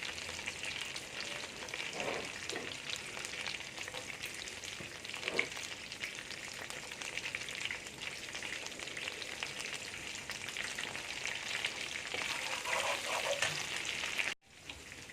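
Melted butter and minced garlic sizzling steadily in a frying pan, with a few light scrapes of stirring. The sound cuts out briefly near the end.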